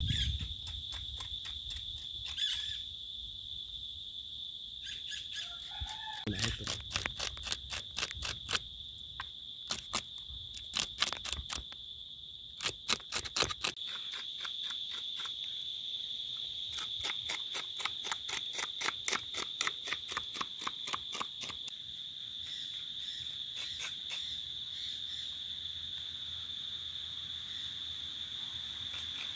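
A steady high-pitched insect drone, with a run of sharp, quick scraping strokes from about six to twenty seconds in as a knife works on fish in a plastic basin.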